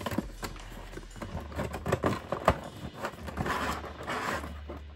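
Cardboard toy box being opened and handled: irregular taps and knocks of the card flaps, with cardboard sliding against cardboard for about a second near the end as the inner box comes out.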